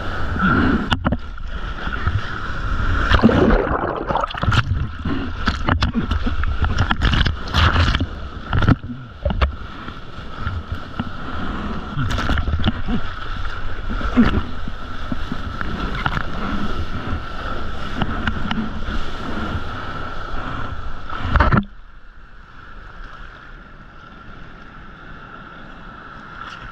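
Sea water sloshing and splashing close around a GoPro held at water level in the surf, with choppy whitewater and many sudden splashes against the camera. About three-quarters of the way through it drops abruptly to a quieter, duller wash.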